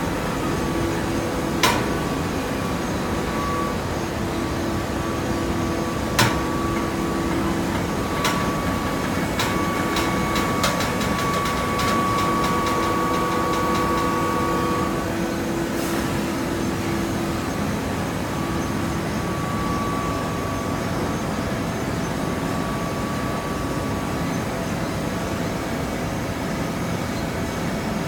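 Hydraulic baling press running steadily, its pump motor giving a constant tone, with several sharp metallic knocks and a quick run of clicks as the machine works.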